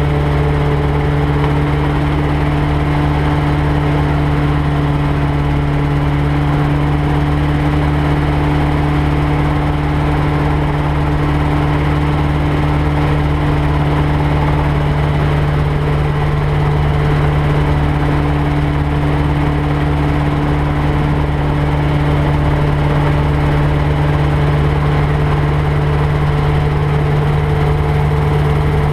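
Rotorway 162F helicopter's flat-four piston engine and rotors running steadily at flight power with an unchanging hum, while it hovers low over the ground.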